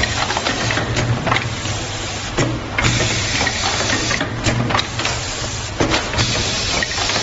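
Automatic welding machine for DVD game boxes running, with a steady low hum, irregular mechanical clicks and clacks several times a second, and bursts of air hiss.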